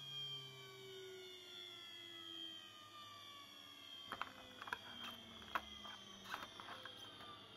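CNC mill spindle winding down after a cut, a whine of several tones falling slowly in pitch. From about four seconds in, sharp clicks and scrapes as a blade pries the cut plastic sheet off the machine bed.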